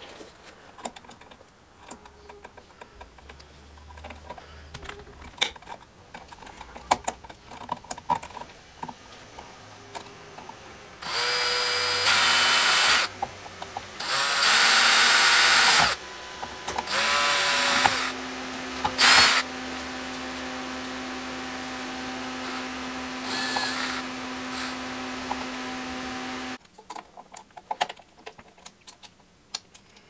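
Cordless drill-driver spinning in several short bursts, then a longer, lower and steadier run that stops suddenly, as it drives the mounting screws of a GFCI receptacle into an electrical box. Light clicks and handling noises come before and after the drilling.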